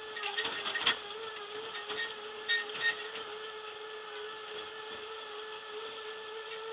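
Boardwalk tram car moving along: a steady whine from its electric drive holds one pitch, with a few clacks and rattles about a second in and again near three seconds.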